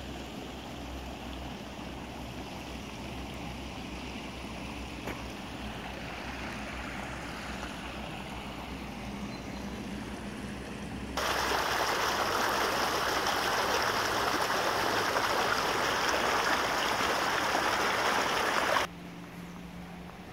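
Steady rushing of a small stream flowing down a concrete channel. About eleven seconds in, the sound jumps abruptly to a much louder, closer rush of water, which cuts off just as suddenly near the end.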